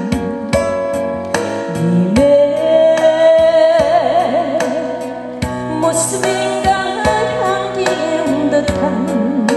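Backing music of a Korean song between sung lines: a lead melody held with vibrato over keyboard chords and a steady drum beat.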